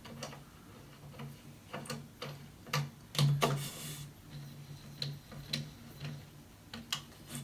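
Scattered clicks and knocks of a clamp-on monitor mount's metal arm and VESA plate being handled and fitted onto its pole, loudest around three seconds in.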